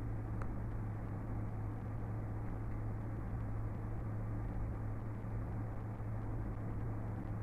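Steady low hum with a background hiss, unchanging throughout.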